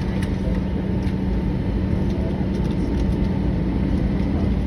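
Steady cabin noise inside an Airbus A319: a low rumble of engines and air-conditioning with a constant low hum and a few faint clicks.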